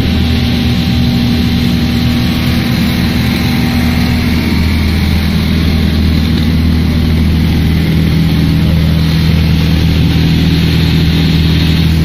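Microwave salt drying machine running: a loud, steady mechanical hum with a low drone. Its tone shifts slightly about halfway through.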